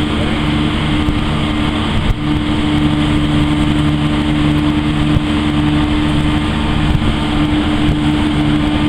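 A car ferry's engines droning steadily on passage, a constant low hum under a steady rushing noise of wind and sea.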